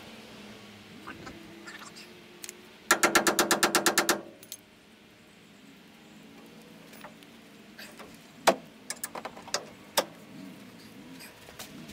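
A wrench turning the screw of a ball joint press clamped on a heavy-duty truck's front steering knuckle, pressing out a seized ball joint. It gives a quick run of about a dozen loud metallic clicks lasting just over a second, about three seconds in, and later a few single sharp clanks of steel tools.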